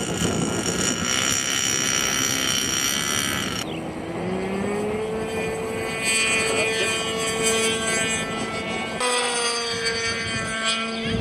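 RC model airplane's engine running at high speed: a steady, high-pitched note that rises briefly about four seconds in and then holds. Heavy wind rushing on the microphone covers the first few seconds.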